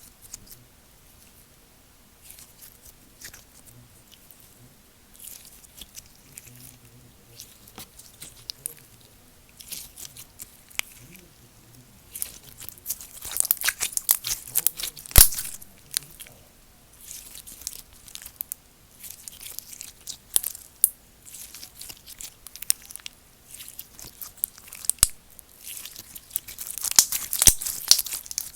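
Slime being squished, stretched and poked by hand, making irregular crackling, popping and tearing sounds. The sounds come in bunches, loudest about halfway through and again near the end.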